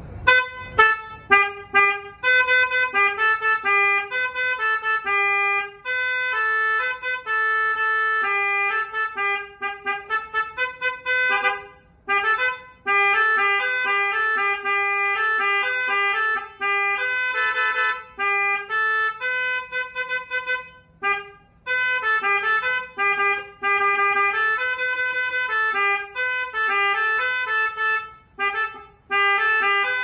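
Budget 'basuri'-style telolet horn set, three snail horns worked from a handheld button controller, playing quick multi-note tunes. Short breaks fall between the tunes.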